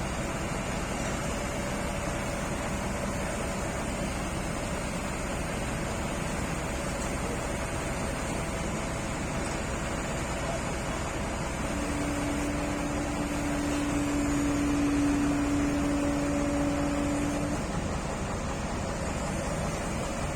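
Excavator's diesel engine running steadily under a hiss of rain. A steady whine starts about twelve seconds in, holds for about six seconds, then cuts off.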